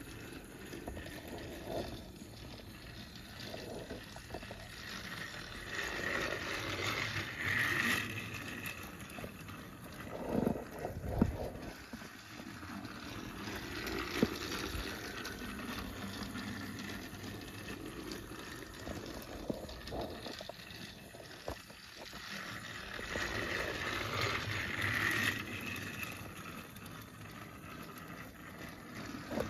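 Battery-powered motorised Percy toy engine running around plastic track, its small motor whirring and wheels clattering, growing louder and fading as it comes past, with a few knocks about ten seconds in. It runs labouredly, which the owner puts down to something stuck in its axles.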